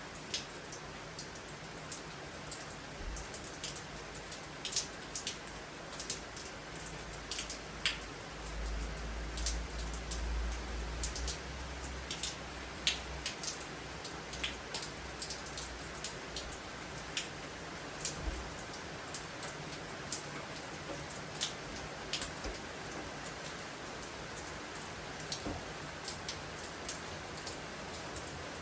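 Steady rain from a storm, with many individual drops tapping sharply on a nearby surface. A low rumble lasts a few seconds about a third of the way in.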